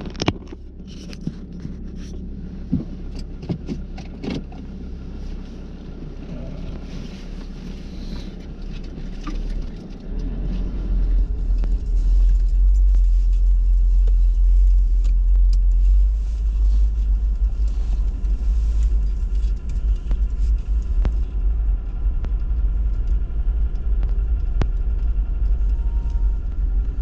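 Car engine and road rumble heard from inside the cabin as the vehicle drives off. There are scattered clicks and rattles over the first ten seconds, then the low rumble grows much louder about ten seconds in as the car picks up speed and holds steady.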